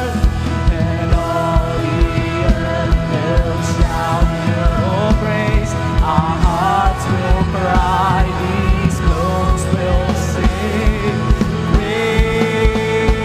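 Live worship band playing a slow song: an electronic drum kit keeps a steady kick-drum beat under keyboard, while a man and a woman sing long held notes.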